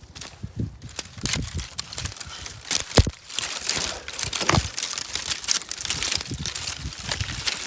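Dry sticks being broken off and snapped by hand, with crackling and rustling of twigs and brush throughout. The loudest sharp snap comes about three seconds in, with another about a second and a half later.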